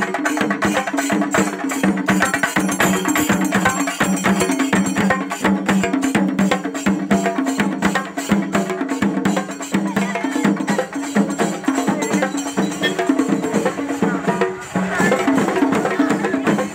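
Kerala chenda drums beaten with sticks by a group of drummers, a fast, dense rhythm of strokes that never lets up.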